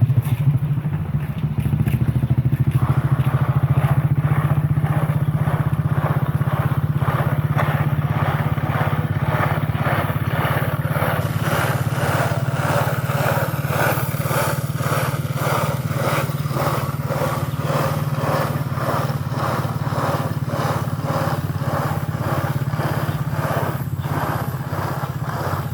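A small engine running steadily. From about three seconds in, a regular, rhythmic pulsing joins the hum.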